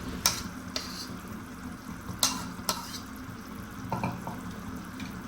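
Food frying in a pan while being stirred, with a steady sizzle and a few sharp clinks of the utensil against the pan.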